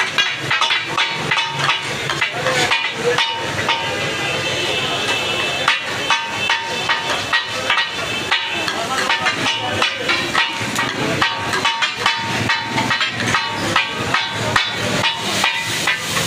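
Metal spatula clacking and scraping repeatedly on a large flat tawa griddle, several irregular strikes a second with a slight metallic ring, over the hiss of food sizzling on the hot plate.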